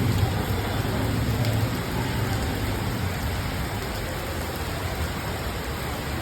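Steady rain falling, an even hiss throughout, with a low rumble underneath that is strongest in the first second or two and then eases off.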